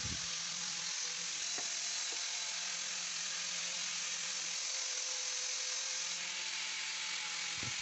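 Steady, even hiss with no clear machine tone, and a couple of faint light knocks about one and a half and two seconds in.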